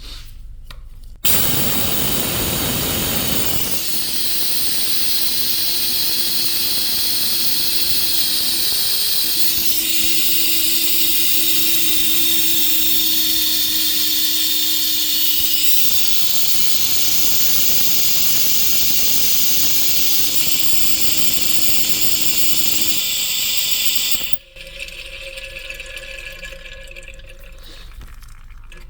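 Pneumatic oil extractor running on compressed air: a loud, steady hiss with a faint whistle as it pulls a vacuum and sucks engine oil up its tube. It starts suddenly about a second in and cuts off suddenly near the end.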